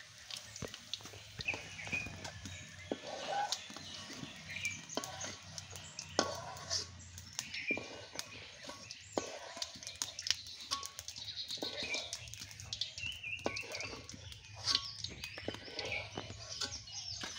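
Scattered clicks and crackles from dry sticks being handled and fed into a wood-fired clay stove, with a ladle knocking in an iron wok, and short high chirps now and then.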